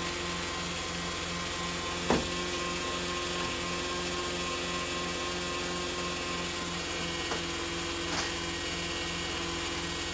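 Car engine idling steadily with an even pulsing hum, and a sharp metal knock about two seconds in as a metal tube frame is handled, with a couple of fainter knocks later.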